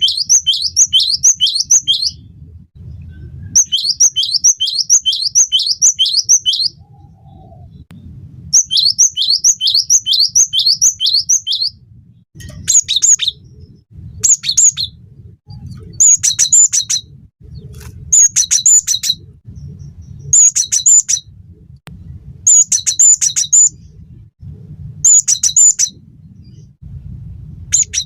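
Great tit (gelatik batu) singing loudly. First come three runs of quick repeated sweeping notes, each lasting two to three seconds. Then, from about halfway in, short repeated song phrases come roughly every two seconds.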